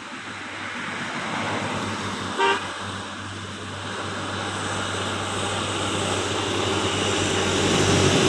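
A bus approaching and growing steadily louder as its engine and tyre noise rise. One short horn toot sounds about two and a half seconds in.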